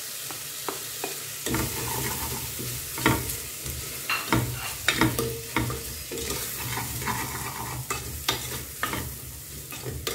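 A plastic spoon stirs and scrapes spiced onion, tomato and carrot frying in oil in an aluminium pressure-cooker pan, with sizzling and irregular knocks of the spoon against the pan. There are light taps for about the first second and a half, and then the stirring gets louder.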